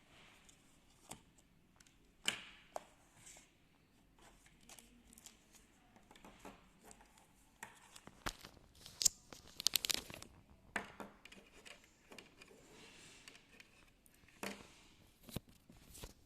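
Packaging being handled by hand: intermittent crinkling and rustling with scattered light clicks and taps, busiest for a second or so in the middle.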